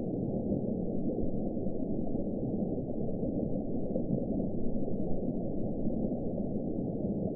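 Deep-sea underwater ambience sound effect: a steady, muffled low wash of noise with nothing high-pitched in it, evoking the sea bottom.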